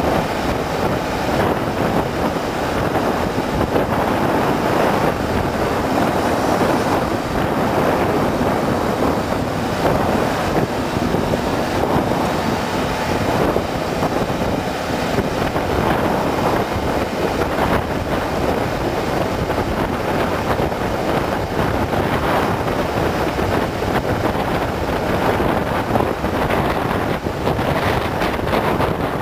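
Steady rush of wind buffeting the microphone, mixed with the road and engine noise of a vehicle driving along a street.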